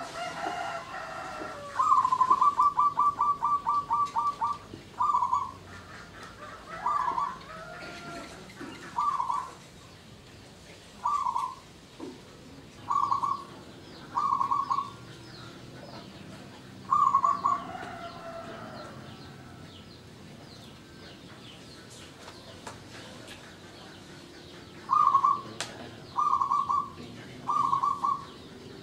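Zebra dove (perkutut) cooing: short bubbling coos every one to two seconds, with one long rapid run of notes about two seconds in. The calls stop for several seconds past the middle, then four coos come close together near the end. Faint chirping of other birds runs underneath.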